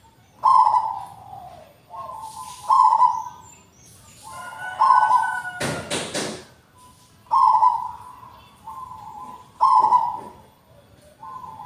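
Zebra dove (perkutut) cooing: its song of short, staccato coo phrases repeats about every two seconds. About halfway through there is one brief noisy burst.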